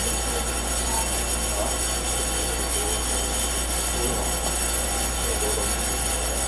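Steady hum inside a stationary Taiwan Railway EMU700 electric commuter train standing at a station, with its onboard equipment running and no wheel or running noise.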